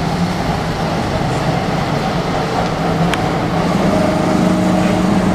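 Vintage A31 tram running slowly round a street curve on its rails: a steady mechanical rumble with a humming tone that grows stronger about four seconds in, and a single sharp click just after three seconds.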